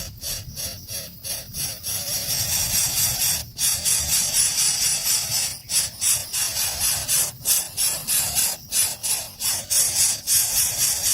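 Nestlings begging for food with a continuous high, scratchy chorus of calls, broken by brief pauses every second or two.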